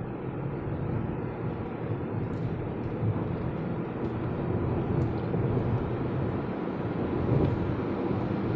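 Steady road and engine noise inside a moving car's cabin: a low rumble of tyres and engine that grows slightly louder over the first few seconds.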